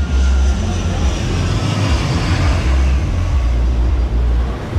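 Twin-turboprop airliner on low final approach, its engine and propeller noise growing loudest about two seconds in, with heavy wind buffeting on the microphone.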